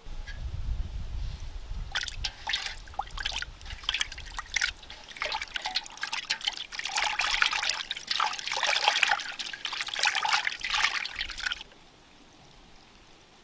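Peeled prawns being washed by hand in a vessel of water: splashing and sloshing, starting about two seconds in and stopping shortly before the end.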